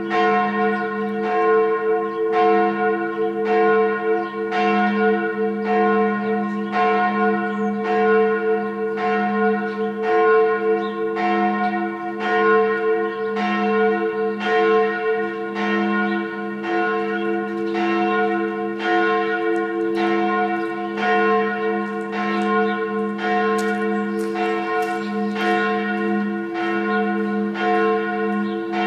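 Church bell rung as a tocsin, the alarm bell, struck over and over at about one stroke a second, each stroke ringing on into the next.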